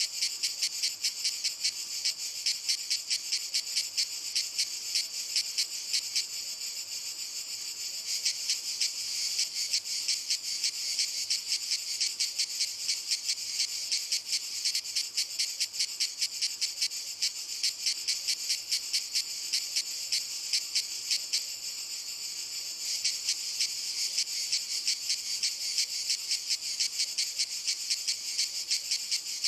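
Cicadas singing: a continuous, high-pitched chorus made of rapid pulses. It eases off slightly twice, about a quarter of the way in and again past two-thirds, before swelling back.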